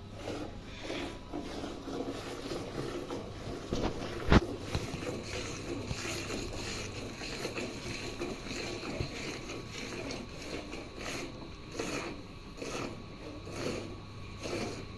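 Milk squirting into a pail in quick, uneven strokes as a cow is milked by hand. One sharp knock stands out about four seconds in.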